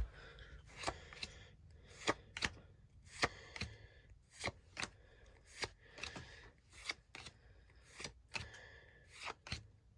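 Pokémon trading cards being slid one by one from the back of a small stack to the front, each move giving a short papery snap, often in quick pairs, about once or twice a second.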